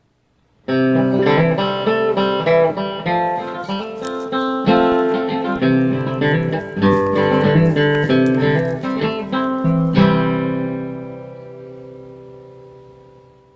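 Acoustic guitar music: a run of plucked notes starting just under a second in, ending on a chord about ten seconds in that rings out and slowly fades.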